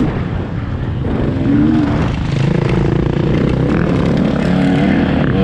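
KTM 125 two-stroke dirt bike engine heard from on the bike, its pitch rising and falling as the throttle is worked. It eases off in the first second, then picks up again and keeps running with small surges.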